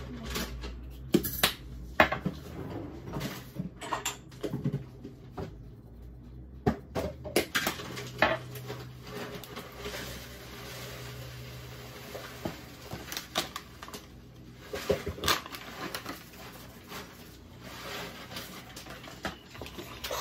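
Irregular clicks, taps and knocks of spice shakers and bottles being handled and shaken over a plastic bowl, with potato wedges tossed in the bowl near the end.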